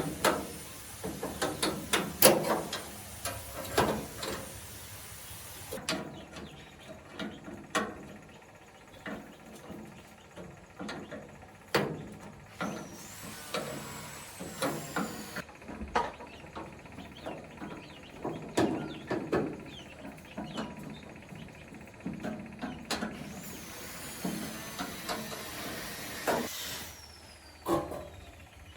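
Irregular knocking, tapping and clattering of hand work, with the loudest knocks in the first few seconds. Two faint high whistles glide through it, about halfway and near the end.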